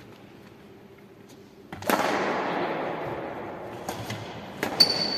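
Badminton rally on an indoor wooden court: sharp racket strikes on the shuttlecock and players' footwork. A sudden loud rush of noise comes about two seconds in and fades away, and a steady high squeak sounds near the end.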